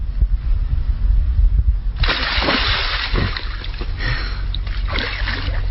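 Water splashing and sloshing, starting about two seconds in, over a steady low rumble.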